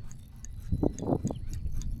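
Water sloshing, with a few louder wet splashes about a second in, over wind rumbling on the microphone and faint rapid ticking.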